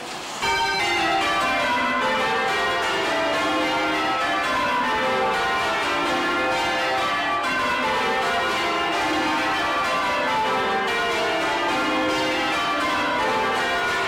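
Church bells ringing full circle, heard close up in the bell chamber: a 1932 Taylor ring of twelve, with a tenor in C. The bells come in loudly about half a second in and strike in repeated rows, each running down from the highest bell to the lowest.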